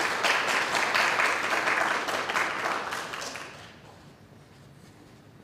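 Small audience applauding, the clapping dying away about three and a half seconds in.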